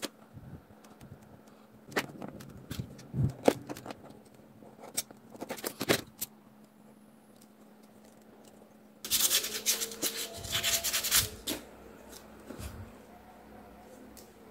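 Handling of small PVC plastic parts against a cutting mat: scattered light clicks and taps, then about two seconds of close rubbing and scraping of plastic just past the middle. A faint steady low hum runs underneath.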